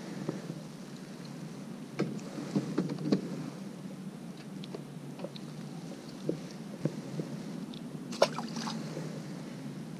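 Scattered small water splashes and clicks over a steady low wind-like hiss, with the loudest splash about eight seconds in.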